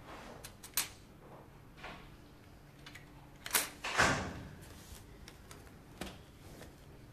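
A few sharp clicks and knocks as a computer keyboard and things on an office desk are handled. The loudest is a knock with a short ring, about four seconds in.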